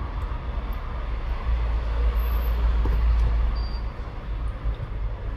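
A steady low rumble with a few faint small clicks and ticks, as small screws are driven back into a Samsung Galaxy A13's frame with a precision screwdriver.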